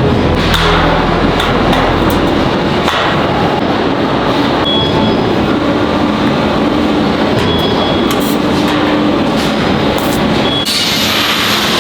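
Loud, continuous metalworking shop noise from steel frame fabrication: steady machine noise with scattered sharp metal knocks and taps. The hiss brightens near the end.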